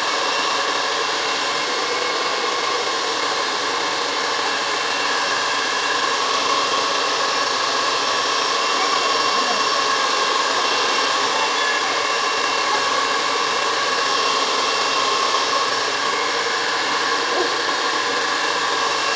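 Handheld hair dryer running steadily as it blows through long hair: an even rush of air with a faint, constant motor whine.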